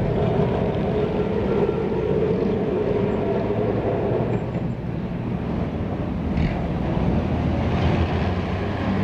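Electric tram running on street track: a steady rumble with a motor whine that fades about four seconds in.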